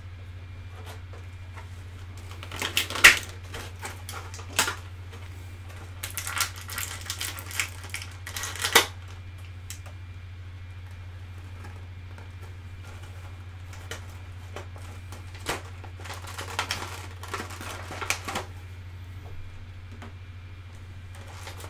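Clear plastic blister packaging crinkling and rattling in several bursts as action-figure accessories are taken out, with small clicks of hard plastic pieces set down on a table, over a steady low hum.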